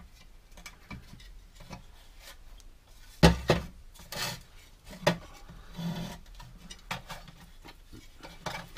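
Pressed-steel Land Rover Defender lower door repair sections being handled against each other: light rubbing and scraping of sheet metal, then a sharp knock about three seconds in and several lighter clinks and taps as the pieces are fitted together and set down.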